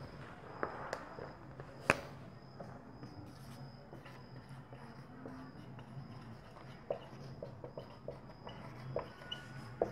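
Faint sounds of a whiteboard being wiped and then written on with a dry-erase marker: scattered light taps and clicks, with one sharper click about two seconds in.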